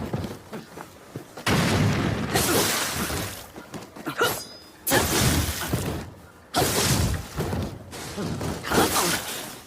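Spear combat sound effects: a series of sudden hits, three loud ones each followed by about a second of noisy, fading crash, with smaller sharp clicks in between.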